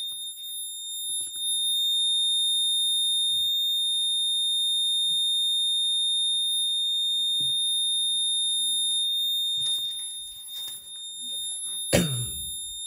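Moose Z900 alarm keypad's piezo beeper sounding one steady, high-pitched, incredibly loud tone: the entry-delay warning after a zone is tripped on the armed panel. Near the end there is a knock and some handling noise.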